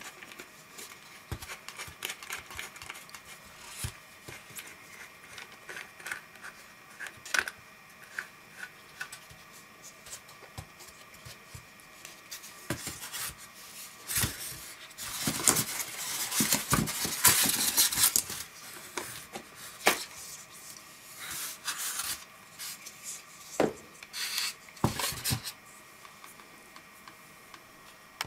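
Hard plastic parts of a laser star projector handled and fitted together, the ribbed mounting stake worked onto its swivel arm: scattered clicks and knocks, with a longer stretch of rubbing and scraping about midway.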